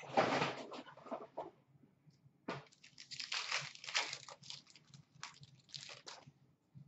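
Paper wrappers of 2016-17 Upper Deck SP Authentic hockey card packs being torn open and crinkled by hand. It starts with a loud burst of crinkling and comes back as a run of quick crackles from about two and a half seconds in until about six seconds.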